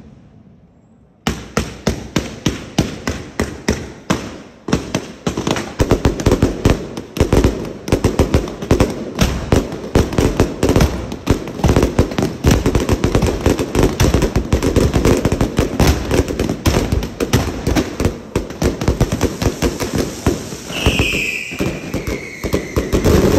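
A dense, continuous barrage of firework bangs and crackles that starts about a second in and runs on without a break.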